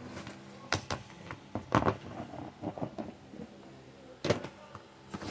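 Clear plastic storage boxes being handled and shifted on a table: a few scattered light knocks and clicks of plastic.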